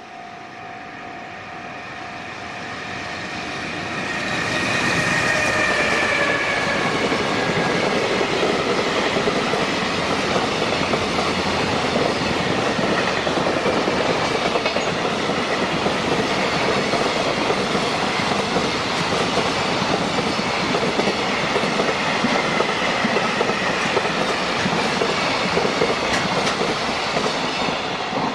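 A JR Freight freight train passes a level crossing at close range. A crossing warning bell rings at the start and is drowned out as the train's noise swells over the first few seconds, with a high whine dipping in pitch as the locomotive goes by. Then a long string of wagons rolls past with steady wheel clatter.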